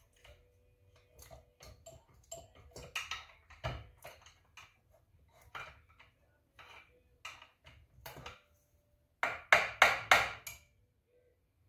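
A steel pry bar clicking and scraping against a rusted cylinder and the engine cases of a Honda 300EX ATV engine as the cylinder is worked up off its studs. A run of several louder, sharp metallic knocks comes near the end.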